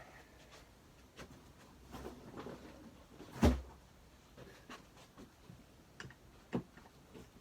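Scattered light knocks and clicks of objects being handled, with one louder thump about three and a half seconds in.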